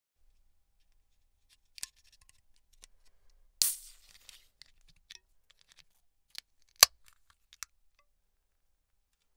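Beer can opened by its ring-pull: a small click, then a short loud hiss of escaping gas that fades within half a second, followed by small metallic ticks. A sharp click, the loudest sound, comes about three seconds after the hiss, with two fainter clicks around it.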